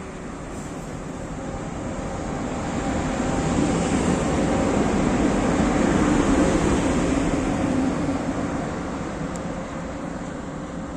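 SNCB class 13 electric locomotive and I11 coaches rolling slowly past at close range, a steady rumble of wheels and running gear with a faint steady hum. It grows louder to a peak as the locomotive at the rear of the train passes about halfway through, then fades as the train moves away.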